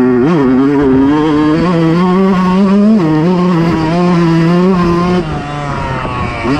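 Fantic 125 motocross bike's single-cylinder engine running hard on a dirt track. There is a quick rev blip about a third of a second in, the pitch steps down about three seconds in, and the throttle eases off after about five seconds, with another blip at the end.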